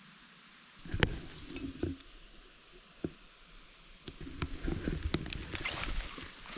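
Footsteps and rustling through low vegetation, with scattered knocks about a second in and a denser stretch of crunching and rustling in the second half.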